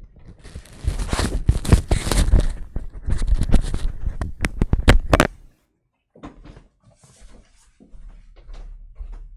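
Rustling and clattering handling noise as a person hangs up a corded telephone handset and gets up from a chair, with several sharp clicks about four and a half to five seconds in. The noise cuts off suddenly, then fainter knocks and shuffling follow.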